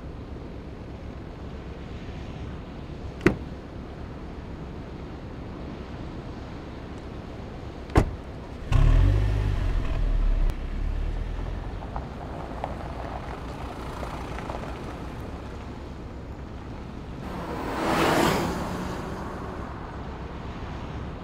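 Two sharp clunks a few seconds apart, then the Mercedes-Benz GLC Coupe's engine starts with a sudden low rumble and settles. Later the car drives past, its sound swelling and fading.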